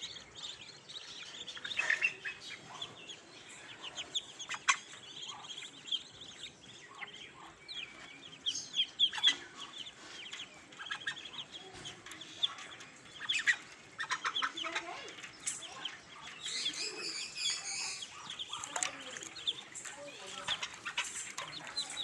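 Muscovy ducklings peeping, many short high peeps in quick irregular runs, with a brief rushing noise about two-thirds through.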